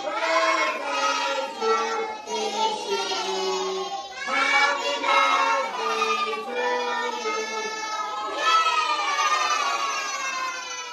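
A group of young children singing together, holding long notes.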